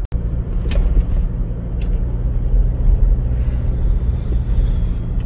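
Steady low rumble of engine and road noise inside a moving car's cabin, with two short clicks in the first two seconds.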